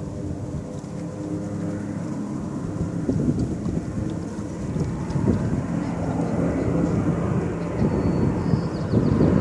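Engine drone of a float-plane water bomber flying in low, growing louder as it approaches.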